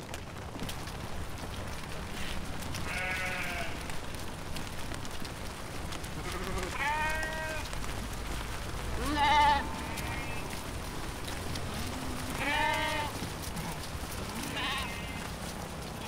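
Sheep in a flock bleating: about five separate wavering bleats a few seconds apart, the loudest about halfway through, over a steady low background noise.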